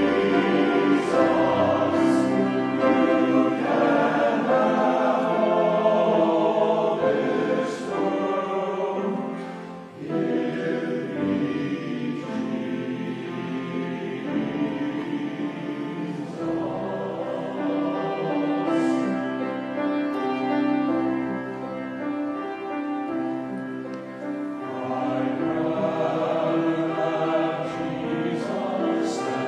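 Men's choir singing a slow hymn in parts, with a brief pause between phrases about ten seconds in.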